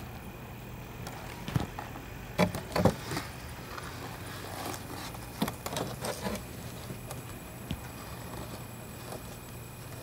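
Hands rummaging in dry leaf litter and dirt: scattered rustles and a few sharp knocks, the loudest about two and a half to three seconds in, over a steady background hum.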